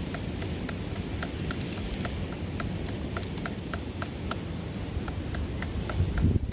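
A knife scraping and scaling a fish on a log, making a quick run of short sharp clicks, about three or four a second, over a steady low rumble.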